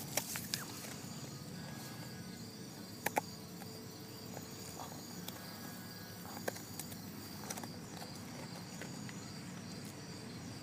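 A German shepherd chewing a dog treat: scattered sharp crunches and clicks over a quiet background, with a close pair about three seconds in.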